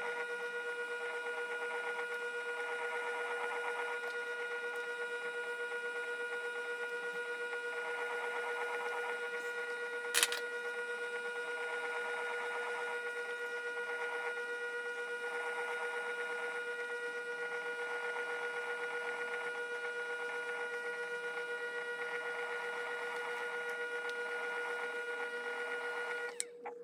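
Electric pottery wheel's motor whining steadily as it spins, with the rasp of a loop trimming tool shaving clay from a bowl's foot coming and going every few seconds. One sharp click about ten seconds in, and the whine cuts off just before the end.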